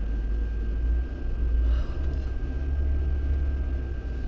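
Lada Niva Bronto's engine and drivetrain running as a steady low rumble, heard from inside the cabin while driving an unpaved forest track.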